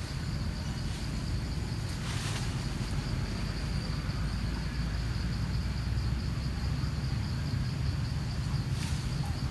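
Steady high-pitched insect trill, pulsing slightly, over a steady low rumble. Two short rustles come about two seconds in and near the end.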